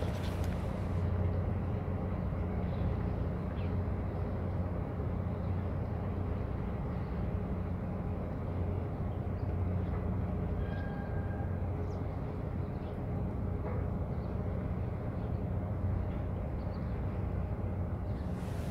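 Steady low engine drone with a deep hum that does not rise or fall.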